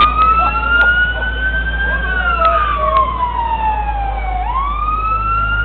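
Fire truck siren wailing: it climbs, then falls slowly over a couple of seconds, and climbs again about four and a half seconds in.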